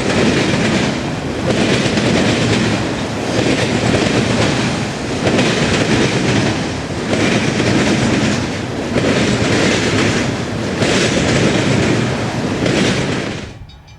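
Freight train cars rolling past, with the wheels clacking in a steady rhythm that swells about every second and a half. The sound cuts off abruptly near the end.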